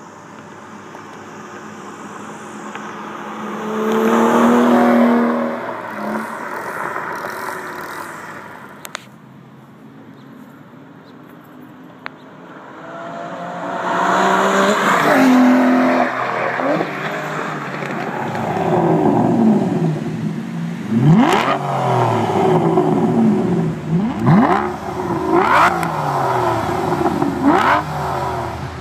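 Aston Martin V12 Vantage's V12 engine through a QuickSilver sport exhaust, revving and accelerating. Two loud surges come in the first half, then a run of quick rises and falls in pitch fills the second half.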